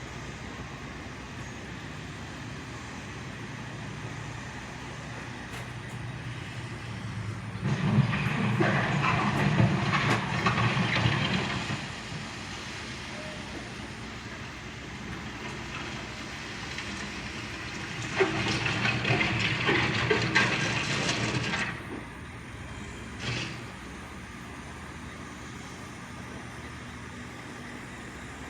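Backhoe's diesel engine running steadily, with two louder stretches of about four seconds each of grinding, rattling noise as the bucket scrapes and smooths gravel, and a brief scrape a little later.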